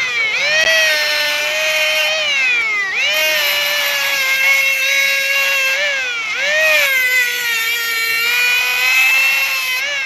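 Small DC motor of a homemade mini grinder running at high speed with a tiny grinding disc on its shaft, giving a high whine, while a steel needle is held against the spinning disc. The whine dips in pitch and climbs back up about three seconds in, about six seconds in, and again at the end.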